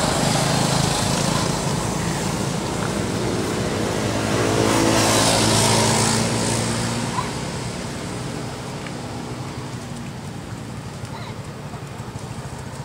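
A motor vehicle's engine passing close by, growing louder to a peak about five to six seconds in and then fading away.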